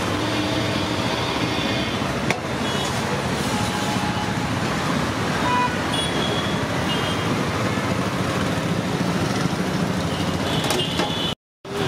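Steady roadside traffic noise with faint vehicle horn toots now and then. The sound cuts out completely for a moment near the end.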